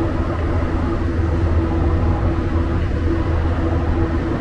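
Cabin noise inside a rubber-tyred Montreal Azur metro train running through the tunnel: a steady low rumble with a motor hum that comes and goes.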